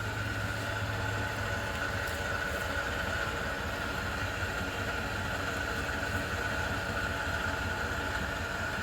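A vehicle engine idling steadily, with a constant high tone over the low hum.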